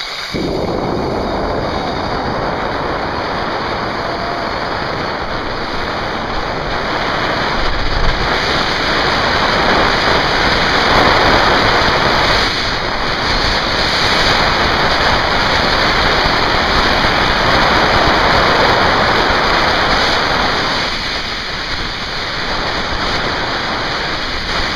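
Zipline ride: the trolley's pulleys running along the steel cable and wind rushing over the microphone, a steady loud rush that starts suddenly, swells through the middle of the run and eases a little near the end.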